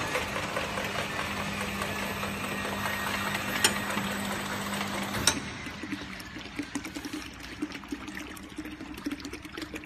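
Automatic bottle-filling line running: a steady machine hum and noise, which changes suddenly about five seconds in to a quieter hum with frequent light clicks and ticks as plastic bottles move along the conveyor.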